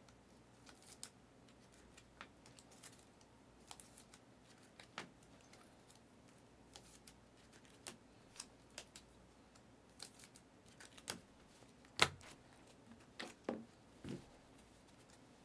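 Trading cards being handled: scattered light clicks and taps as cards are flipped and set down, with a sharper snap about twelve seconds in.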